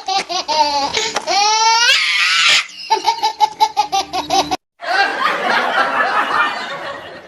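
Laugh-track sound effects: a fast, high-pitched 'ha-ha-ha' cackle, broken about a second in by a rising squealing laugh, cuts off abruptly, then gives way to a crowd laughing.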